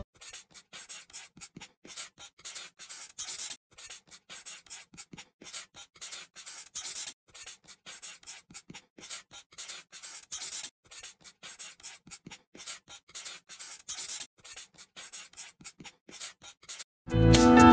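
Felt-tip marker drawing on paper in short rubbing strokes, a few a second.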